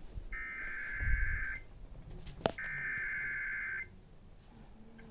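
Two bursts of NOAA Weather Radio SAME digital header tones, each a buzzing two-tone data burst lasting about a second and a quarter, about a second apart. They are the coded header that opens an Emergency Alert System warning.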